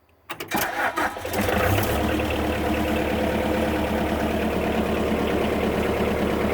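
Bobcat skid-steer engine cranking and catching, then settling into a steady idle.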